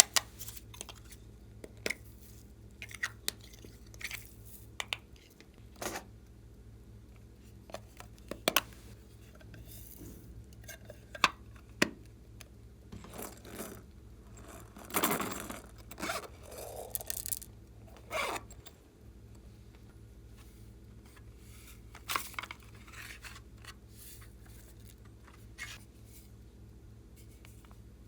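Small objects being handled, making scattered sharp clicks, taps and scrapes, with a longer scraping and rustling stretch about halfway through.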